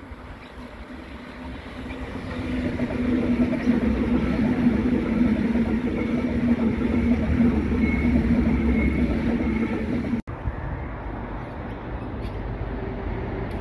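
Double-deck electric passenger train approaching and running past close by: the rolling rumble and steady motor hum build over the first few seconds and are loudest as the carriages pass, with a faint high whine. About ten seconds in the sound cuts out for an instant, and a lower steady rumble follows.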